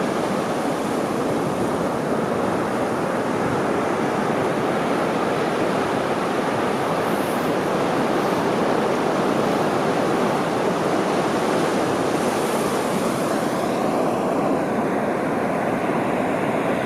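Ocean surf breaking onto a sandy beach: a steady, continuous rush of waves.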